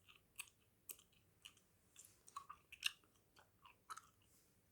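Faint, close-miked gum chewing: soft, irregular mouth clicks and smacks, about two a second.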